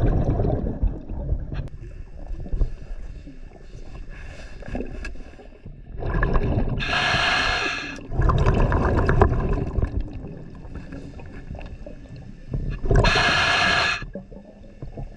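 Scuba diver breathing through a regulator underwater: two loud hissing bursts of exhaled bubbles, about six seconds apart, with a low gurgling rumble between them.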